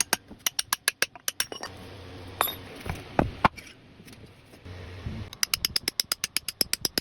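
Rapid, even mechanical clicking, about six to eight clicks a second. It pauses for a few seconds in the middle, where a low hum and a few knocks are heard, then resumes near the end.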